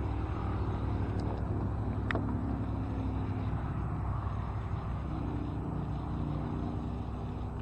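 A motor engine running steadily with a low droning hum, with two faint clicks about one and two seconds in.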